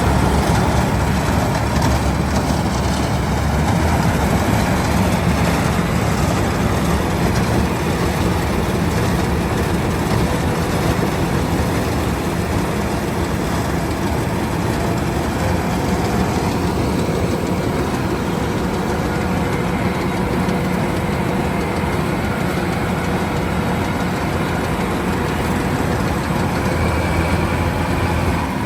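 Kubota rice combine harvester running steadily under load, a continuous heavy engine and machinery drone.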